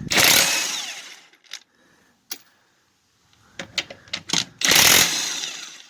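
Kobalt 24V brushless 1/2-inch cordless impact wrench hammering in two bursts about four and a half seconds apart, each trailing off over about a second. A few short clicks and taps come between the bursts.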